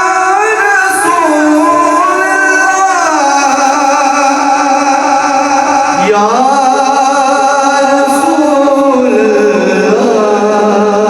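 Devotional naat music: a long melodic line drawn out on held notes that glide smoothly from one pitch to the next, with singing.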